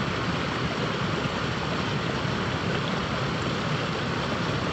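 River water rushing steadily through a small rapid, an even, unbroken wash of noise.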